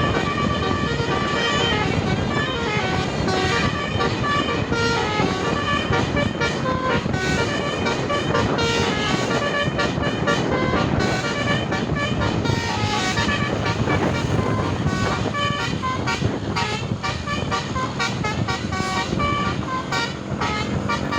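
Basuri 'telolet' multi-tone bus horn playing a quick tune of short notes stepping up and down in pitch, over engine and traffic noise.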